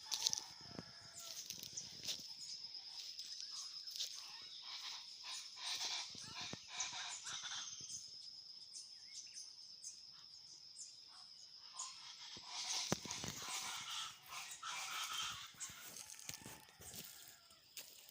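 Birds calling in a rural outdoor soundscape: many short, irregular calls, including fowl-like ones, over a continuous high, wavering trill.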